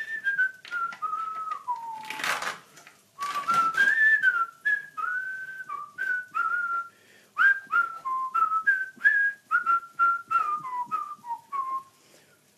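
A man whistling a tune in short, clear notes that step up and down, with a brief rushing noise about two seconds in and another a second later.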